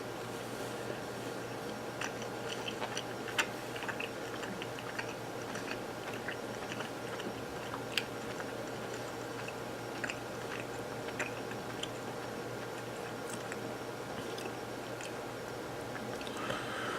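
A person chewing a piece of smoked ghost-pepper-spiced beef: soft scattered mouth clicks, a few sharper, over a steady background hum.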